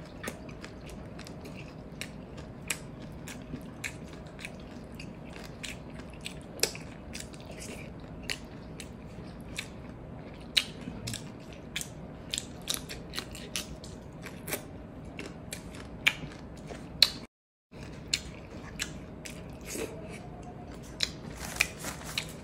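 Close-miked eating: chewing, lip smacks and many short sharp mouth clicks as salted-egg shrimp and rice are eaten by hand, over a faint steady hum. The sound cuts out completely for a moment about 17 seconds in.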